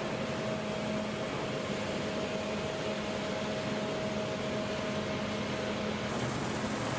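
CLAAS Lexion 8900 TerraTrac combine harvester running steadily: an even mechanical rush with a steady whine and a low hum. The whine drops out about six seconds in.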